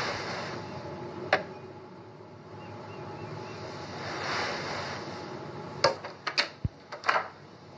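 Film soundtrack: a rushing, wind-like noise that swells twice, with a sharp click a little over a second in and a quick run of sharp knocks near the end.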